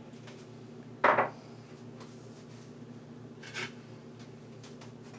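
Faint scraping of a whisk stirring thick polenta in a metal saucepan, with one sharper knock about a second in.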